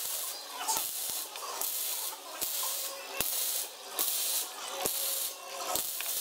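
Drill press bit cutting into a small metal block held in a machine vice: the cut comes as a hiss in short repeated bursts, a little more than once a second, with light clicks between them.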